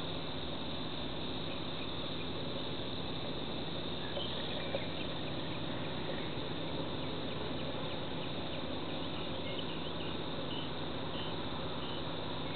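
Steady drone of insects, with short faint chirps scattered through the middle and later part.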